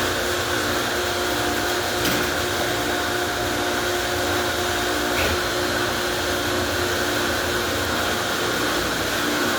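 Car wash equipment running steadily: a continuous hiss over a motor's steady hum, with brief clicks about two seconds in and again about five seconds in.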